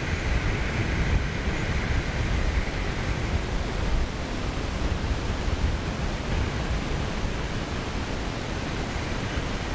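Wind buffeting the microphone over the steady wash of small waves breaking on a shingle beach.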